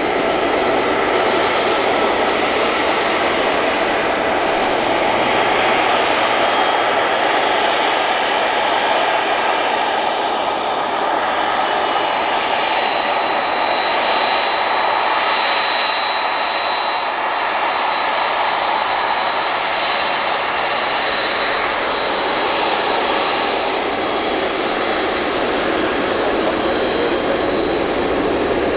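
Boeing 767-300F's twin turbofan jet engines running at taxi power: a steady jet roar and hiss with a thin high whine that grows stronger about halfway through as the engines face the listener, then eases.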